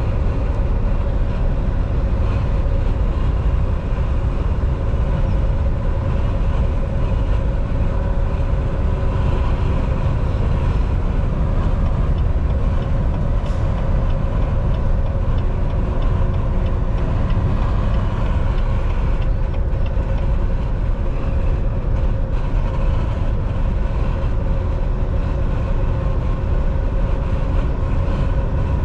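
Cab of a Volvo semi-truck at highway speed: a steady, unbroken drone of engine, tyres and wind, with a steady hum running through it.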